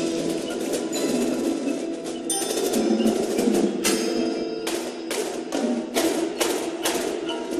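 Indoor percussion ensemble playing: mallet keyboards such as marimbas hold sustained pitched chords while marching drums strike sharp accents, sparse at first and frequent from about two seconds in.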